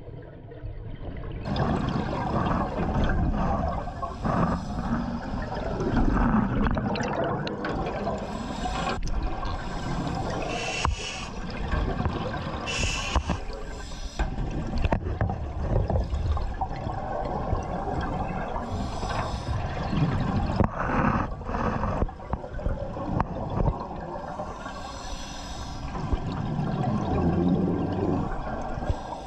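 Water sloshing and gurgling, with short bursts of bubbling now and then.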